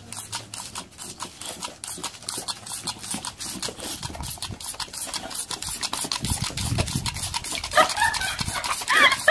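A boxer dog snapping at a jet of water from a toy squirt gun, with a fast run of clicks; from about eight seconds in the dog breaks into high, rising-and-falling yelping cries.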